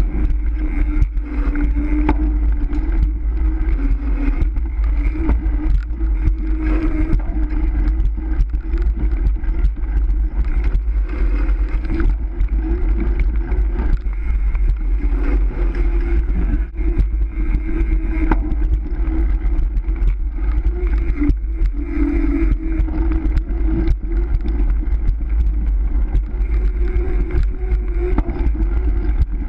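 Steady rush and rumble of a road bicycle ridden fast on concrete, heavy wind buffeting on the bike-mounted camera's microphone over the hum of the tyres.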